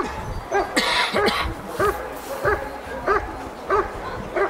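German Shepherd barking repeatedly at a protection helper in a steady rhythm, about one and a half barks a second. A short hissing rasp comes about a second in.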